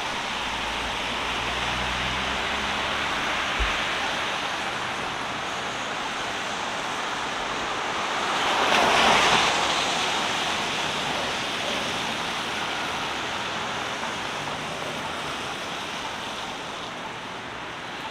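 Downtown street traffic: a steady wash of city traffic noise, with one vehicle passing close by, swelling to its loudest about halfway through and then fading.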